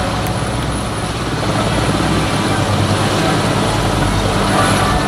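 Helicopter running on a stadium pitch, a steady low engine and rotor hum that holds throughout.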